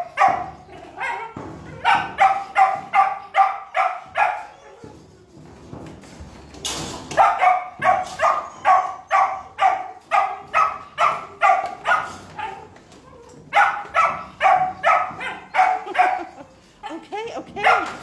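A dog barking repeatedly in runs of several barks, about three a second, with short pauses between the runs. A brief harsh burst of noise cuts in about seven seconds in.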